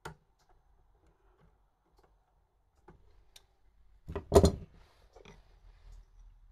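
Light metallic clicks from pliers and small steel parts as a lock clip is squeezed onto the shaft end of a scooter starter motor held in a vise. A louder metal clatter comes about four seconds in, with a few more clicks after it.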